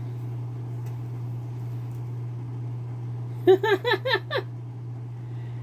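A woman laughing: a quick run of about six short giggles, starting about three and a half seconds in, over a steady low hum.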